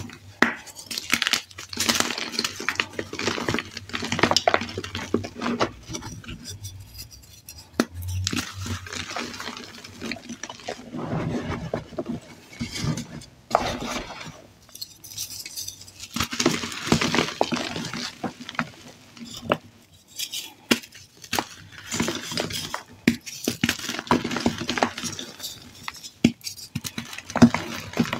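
Dyed and reformed gym chalk crushed and crumbled by hand: irregular crunches and crackles of breaking chalk, with hard fragments clicking against one another.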